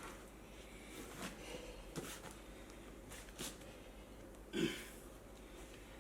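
A few faint clicks and knocks from tyre-fitting work, with a short grunt of effort about four and a half seconds in.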